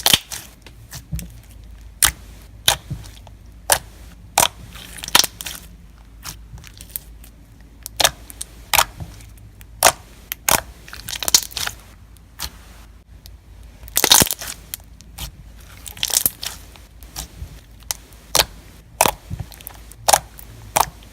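Clear green slime topped with white jumbo foam beads being squeezed and pressed by hand, the beads crunching and crackling in irregular sharp pops, one or two a second with a few quick clusters.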